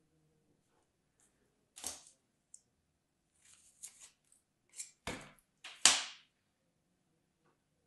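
Kinetic sand being packed into a plastic ice-cream-cone mould and scraped level with a tool: a few short scraping, crunching strokes, the loudest about six seconds in.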